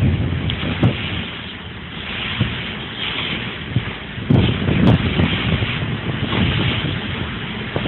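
Wind buffeting a phone's microphone over the rush of water along a moving ferry's hull, with a stronger gust about four to five seconds in.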